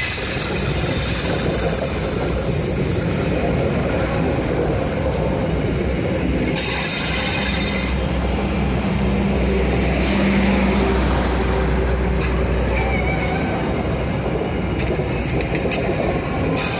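A train passing: a loud, steady running noise of the train's wheels on the rails over a deep rumble that swells for several seconds in the middle.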